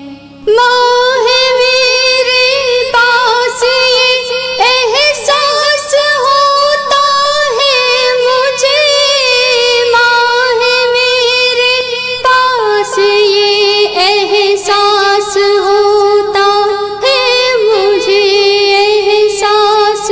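Music: a wordless sung interlude by a female voice, a melody of long held notes with vibrato, with light percussive ticks; it starts about half a second in after a short dip.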